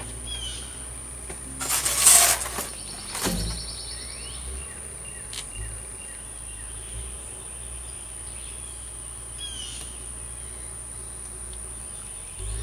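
A continuous high insect trill with a few bird chirps. About two seconds in comes a short, loud rustle of packing paper being handled, and just after it a single knock.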